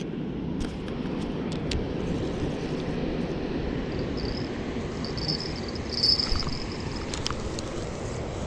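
Steady low outdoor rumble with a high insect trill, typical of a cricket, starting about four seconds in and coming and going. A few light clicks are scattered through it.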